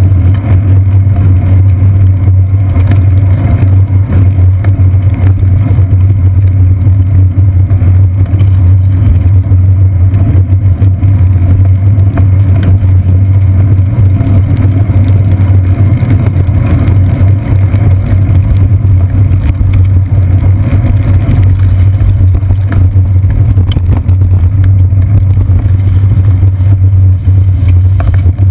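Loud, steady low rumble of road vibration through a seat-post-mounted GoPro Hero 2 in its housing as the bicycle rides over wet city streets, mixed with the noise of car and bus traffic close by.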